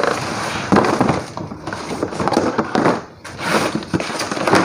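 Cardboard boxes being handled and folded flat: irregular scraping, rustling and flapping of cardboard, roughly once a second.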